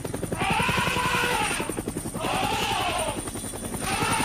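Cartoon helicopter sound effect: a fast, steady rotor chop. Three rising-and-falling pitched calls sound over it, about a second each.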